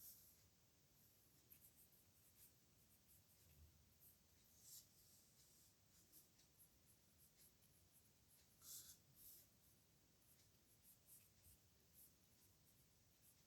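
Pen nib scratching across paper in short, irregular strokes as Korean characters are written, very faint, with a couple of more noticeable strokes about four and a half and nine seconds in.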